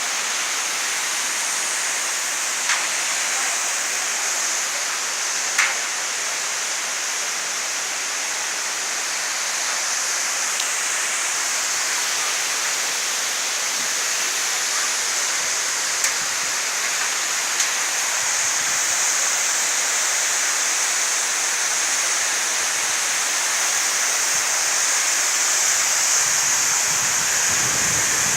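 Waterfall's steady rush of falling water, an even hiss-heavy noise that swells slightly near the end, with a few faint brief clicks.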